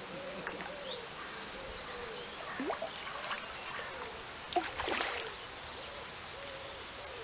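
Birds calling outdoors: a soft, repeated cooing that comes over and over, with a couple of short, sharper calls about two and a half and five seconds in.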